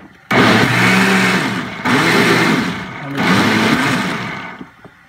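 Countertop blender pureeing cooked vegetable soup, run in short pulses: the motor starts about a third of a second in, cuts out briefly twice with its pitch rising and falling on each run, and winds down near the end.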